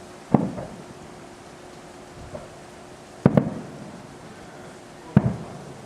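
Three distant fireworks going off, each a sharp bang followed by a rolling echo that dies away. The bangs come about three seconds and then two seconds apart.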